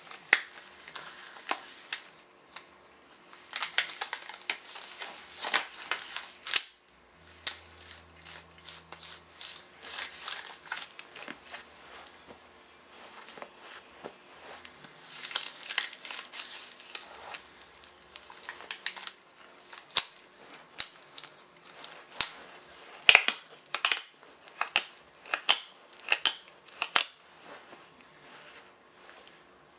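Black latex gloves being pulled on and worked over the hands: rubbery rustling and stretching, with a run of sharp clicks from the latex in the second half.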